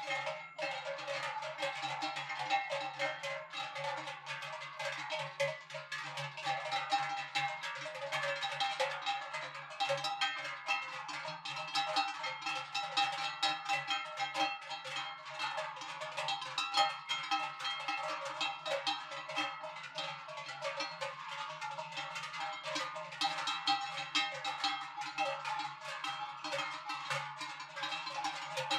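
Large cowbells clanging irregularly on the necks of walking cows, several bells striking at once with no steady beat and their ringing tones overlapping.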